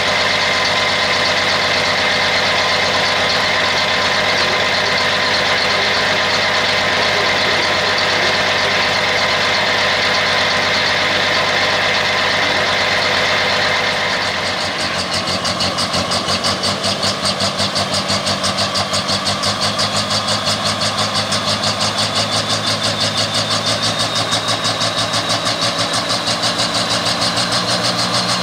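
Massey Ferguson 1130 pulling tractor's diesel engine idling, with a steady whine over it. About halfway through, the sound changes to a regular pulsing idle, and a thin high whine slowly rises in pitch.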